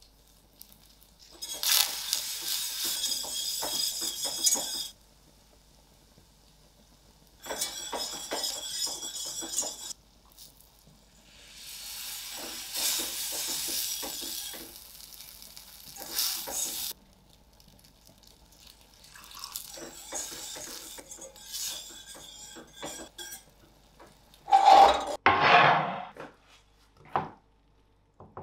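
Metal wire whisk beating butter and flour into a sauce in a stainless steel saucepan, in several bursts of rapid scraping and clinking against the pan. Near the end come a couple of louder scrapes and knocks of a pan.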